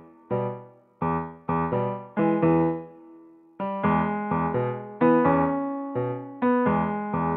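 Background music on a piano-like keyboard: short struck chords, each dying away, with a brief lull about three seconds in.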